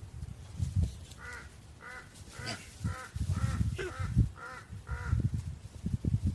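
An animal calling in a run of about eight short, harsh calls, roughly two a second, with bursts of low rumbling noise underneath.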